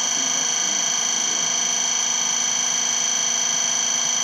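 A steady high-pitched electrical whine made of several held tones, unchanging throughout.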